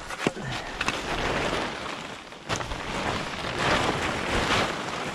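Plastic lumber wrap rustling and crinkling as it is pulled back off a pile of wooden blocks, with a few sharper crackles.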